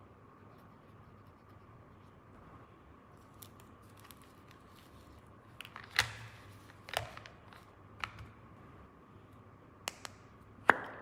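Plastic toy parts and packaging being handled: a handful of sharp clicks and snips, coming in the second half, the last one the loudest.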